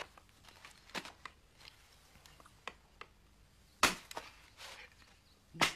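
Scattered sharp cracks and knocks, the loudest about a second in, near four seconds and just before the end, with fainter ticks between.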